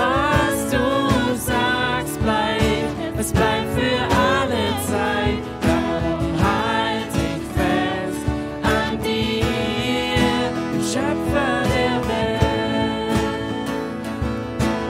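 A man singing a German worship song while strumming an acoustic guitar.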